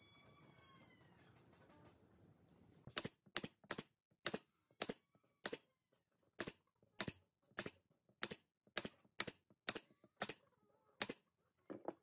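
Nail gun firing about fifteen times in quick succession, sharp clacks roughly two a second, driving nails through a wooden hub into pine paddle boards.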